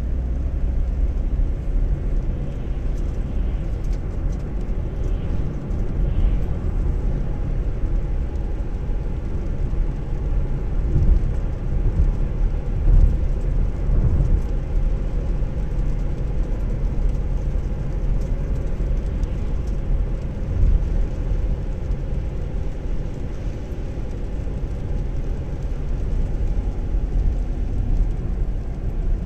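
Steady low rumble of a car driving on a wet road, heard from inside the cabin: tyre and engine noise at cruising speed.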